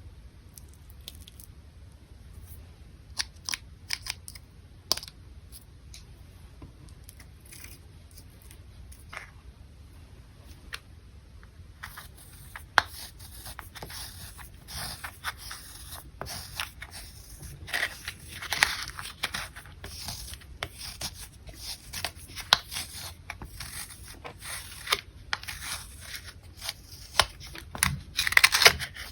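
Clear slime being worked by hand, giving sticky clicks and pops. They come one at a time at first, then turn into continuous crackling about halfway through.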